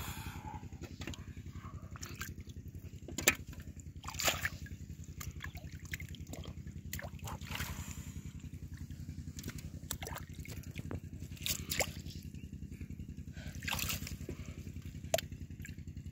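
Hands sloshing and splashing through shallow muddy water while groping for fish by hand, with a few sharper splashes and trickles. A steady low drone runs underneath.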